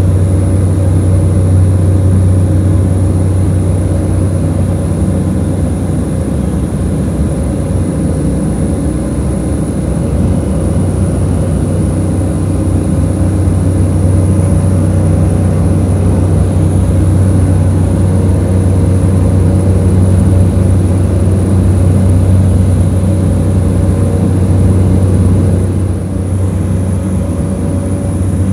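Cabin noise inside a Cessna 208B Grand Caravan in flight: its single Pratt & Whitney PT6A turboprop engine and propeller running steadily. It makes a loud, deep drone with a few steady higher hums, dipping slightly near the end.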